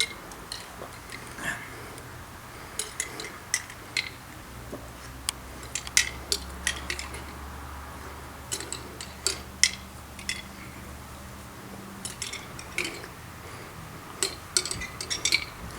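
Irregular short clinks and clicks of a spoon and containers handled while eating yoghurt and applesauce in a speed-eating race, coming in clusters.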